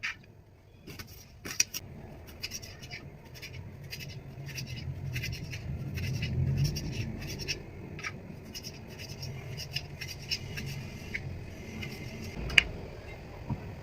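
Kitchen prep sounds: a run of short, light scrapes and clicks, a few a second, over a low hum. One sharp knock comes near the end.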